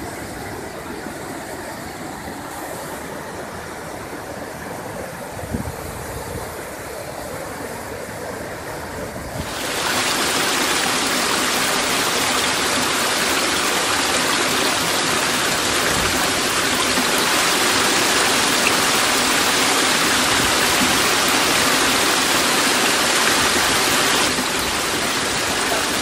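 Waterfall: a steady rush of falling water that jumps louder and hissier about nine and a half seconds in and stays so.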